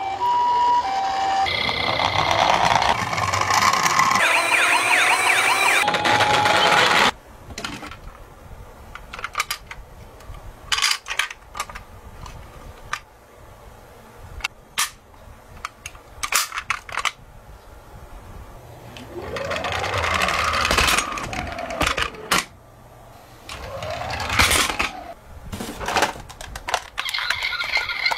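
Toy ambulance's electronic siren: a two-tone hi-lo, then a fast warbling sweep, cutting off suddenly about seven seconds in. After that, scattered clicks and knocks of plastic toy vehicles being handled, with two brief rising-and-falling siren wails, and a siren sound starting again near the end.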